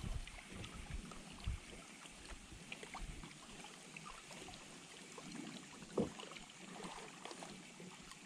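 Water lapping gently against a kayak hull, with faint clicks from a spinning reel being slowly cranked and one sharp knock about six seconds in.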